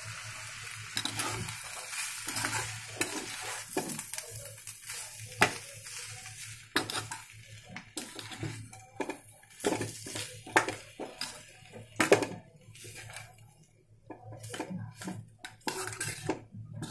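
A perforated metal spoon stirring boiled potatoes and spices in a metal kadai, scraping and clinking irregularly against the pan, with a light sizzle of hot oil in the first few seconds.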